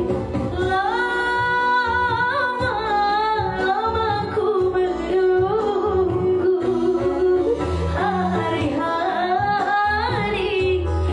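A woman singing with held notes and melismatic ornaments over instrumental backing with a steady bass.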